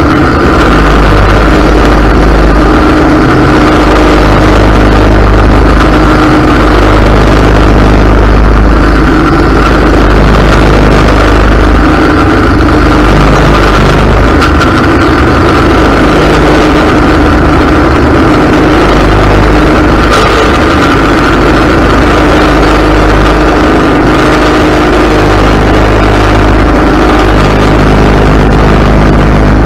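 Ariens riding mower's engine running steadily and very loud, heard close up from the mower deck as it mows through tall grass.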